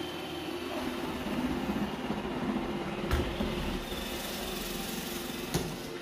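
Roomba i7 robot vacuum running on a hardwood floor, a steady motor hum with a brushy whir. Two short knocks, about three seconds in and near the end.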